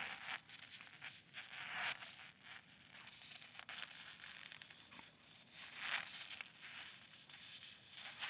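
Snow crunching and rustling as two dogs wrestle and roll in it, in irregular scuffling bursts that are loudest near the start, about two seconds in and about six seconds in.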